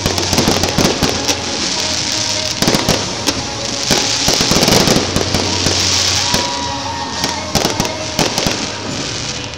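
Fireworks display: a rapid, irregular string of bangs and crackles from shells and comets over a dense crackling hiss, busiest in the middle and thinning a little near the end.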